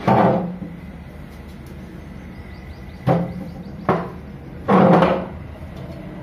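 A wooden chair being pulled up and sat on: a scrape at the start, two short knocks about three and four seconds in, and a longer scrape about five seconds in, over a steady low hum.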